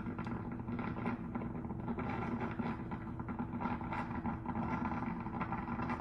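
Mr. Coffee 10-cup thermal drip coffee maker brewing: a steady hum with rapid irregular crackles as it heats and pushes water through.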